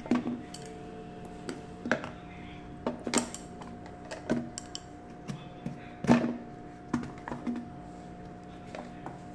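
Irregular clicks and knocks of beetroot and carrot pieces and hands against a hard plastic container lid, about one a second, the loudest about six seconds in, over a steady low hum.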